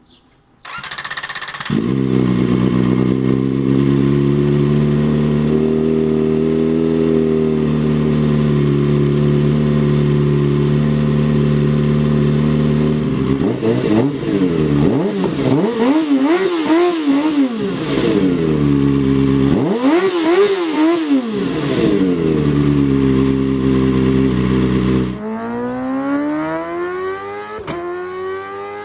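Kawasaki ZX-4RR's 399 cc inline-four motorcycle engine starting and settling into a steady idle. It is then blipped twice, the pitch rising and falling back to idle each time. Near the end a quieter engine note climbs steadily in pitch, as in accelerating.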